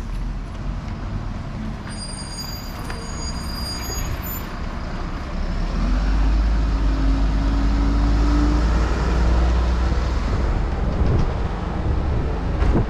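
A bus drives past close by, its engine a low rumble with a drone that rises slightly as it pulls away and grows much louder about halfway through before easing off. Earlier there is a brief high-pitched squeal over steady street traffic.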